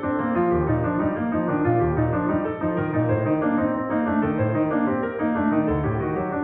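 Background music led by piano, with a moving bass line under the notes.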